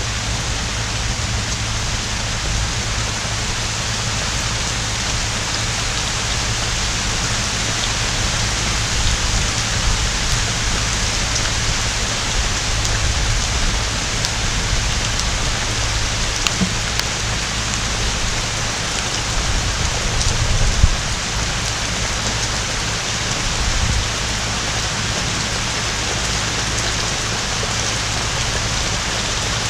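Heavy rain pouring steadily from a hurricane's outer band, with a low rumble underneath and one brief low thump about 21 seconds in.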